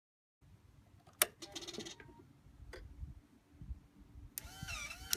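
Two sharp clicks with a low rumble, then near the end the Triumph Speedmaster's air-cooled parallel-twin engine is cranked with a wavering whine and catches.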